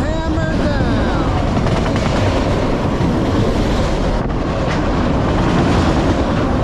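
Freight train of autorack cars rolling past close by: a steady, loud rumble and clatter of steel wheels on the rails.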